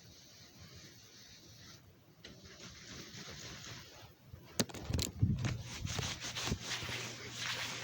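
Two sharp clicks about halfway through, then a few seconds of rubbing and scraping with more clicks, from something being handled by hand.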